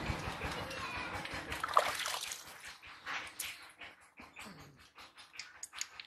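Water splashing as hands are rinsed and washed with soap, heavy for the first two seconds or so, then thinning to scattered drips and small wet sounds of hands rubbing.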